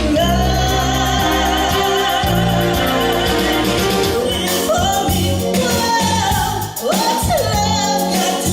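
A song with a sung vocal line over a steady bass beat.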